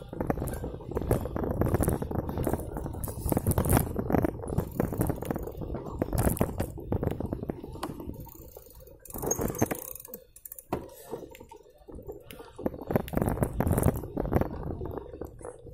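Mountain bike rolling over a bumpy dirt track, picked up by a handlebar-mounted phone: a low rumble with irregular rattling and knocking from the bike and mount, easing off for a few seconds midway.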